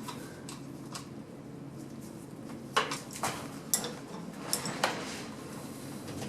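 Scattered sharp metallic clinks and knocks of hand tools being handled, irregularly spaced and bunched in the middle, while the transmission fluid is being drained.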